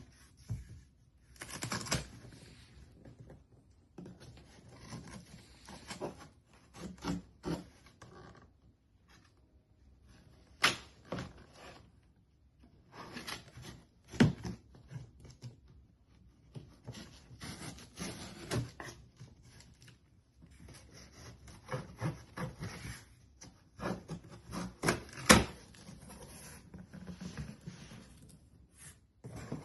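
A package being opened and handled by hand: irregular rustling and scraping with scattered sharp clicks and knocks, the loudest about a third of the way in, near halfway and near the end.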